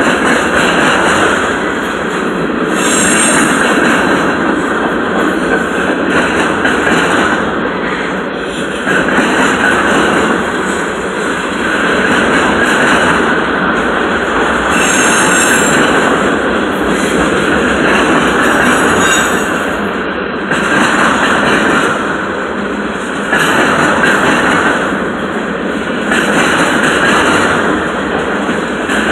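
Freight cars of a CN train rolling past: a steady loud rumble and rattle of wheels on rail, with brief high-pitched wheel squeals a few times.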